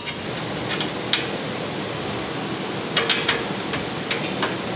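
Steady hiss of room noise with a few light clicks and taps from metal mounting hardware being handled: a couple about a second in and a quick cluster around three seconds in.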